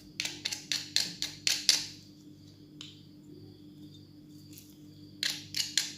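A metal utensil tapping and clinking against a bowl while a marinade is worked: a quick run of about eight taps in the first two seconds, then a few more near the end, over a faint steady hum.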